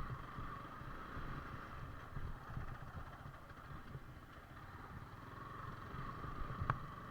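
Yamaha R15 V4 motorcycle's 155 cc single-cylinder engine running steadily as it rides along a rough track, with one sharp click near the end.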